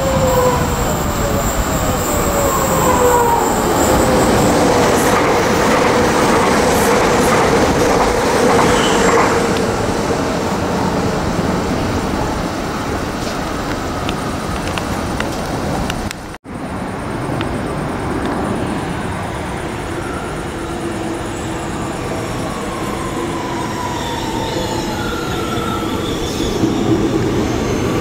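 Trains running through a metro station: rail and wheel noise with a motor whine that falls in pitch in the first few seconds, and a light wheel squeal. After a sudden break about two-thirds of the way in, an Amsterdam GVB metro train runs alongside the platform with its motor whine and rumbling wheels.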